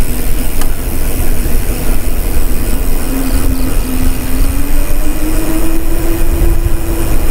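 Wind rushing over the microphone and the rumble of a mountain bike's tyres rolling down an asphalt road. A faint hum rises a little in pitch around the middle and then holds.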